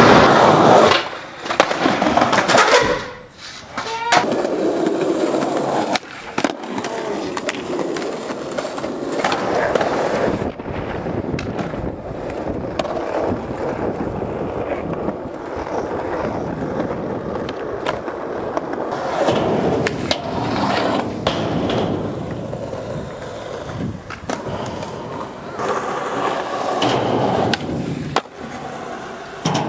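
Skateboard wheels rolling over concrete and tarmac, broken by several sharp clacks as the board is popped and lands tricks.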